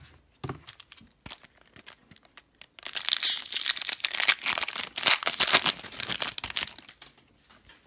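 Foil wrapper of a 2018-19 Upper Deck Series 1 hockey card pack being torn open by hand: a few light rustles and clicks at first, then about four seconds of dense crinkling and tearing of the foil.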